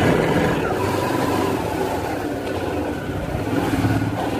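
Yamaha motorcycle engine running steadily as the bike is ridden, heard from the rider's seat.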